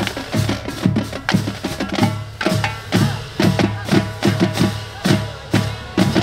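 Music with a heavy, regular drum beat, about two to three strikes a second, under sustained pitched notes.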